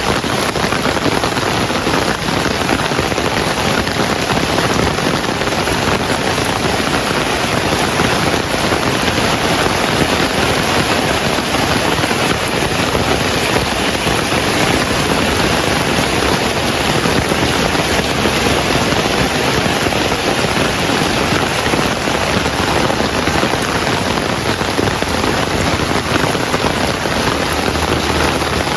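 Heavy rain falling steadily, a dense, even hiss of many drops on surfaces.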